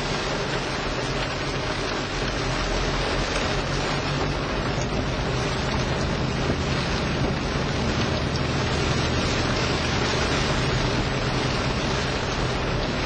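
Heavy rain falling on a moving car's roof and windshield, with tyres hissing on the wet road, heard inside the cabin. A steady low hum runs underneath, and the noise grows a little louder a couple of seconds in and again past the middle.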